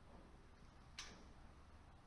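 Near silence with a single short click about a second in.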